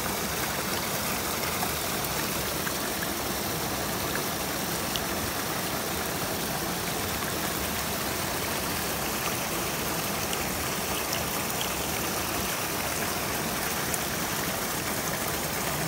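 Shallow mountain stream running over rocks: a steady rush of flowing water.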